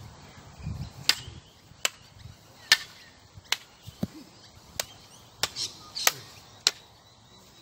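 Sharp clacks of a long training stick striking a closed umbrella held up to block it, about nine hits, one after another, in a stick-fighting drill.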